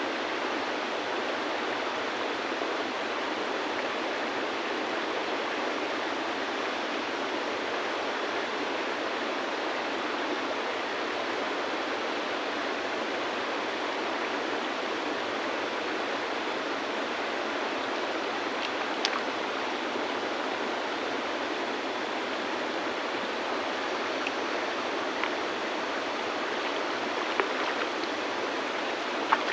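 River water flowing steadily over stones. In the second half there are a few faint, sharp clicks of stones being set against one another.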